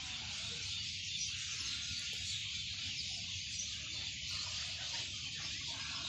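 Dense, steady chorus of many high-pitched calls from a large flock of birds gathering to roost at dusk, over a low steady rumble.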